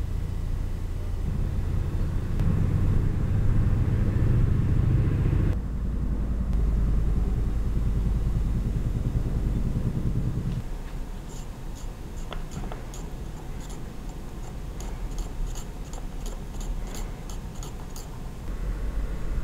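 A low, steady rumble underneath, and from about halfway through, a quick run of light, sharp clicks: thin wooden chopsticks tapping against the inside of a tiny ceramic pot as they stir a marinade.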